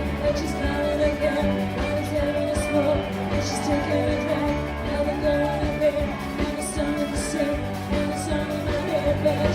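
Pop or rock-and-roll style music with a singing voice over sustained low notes.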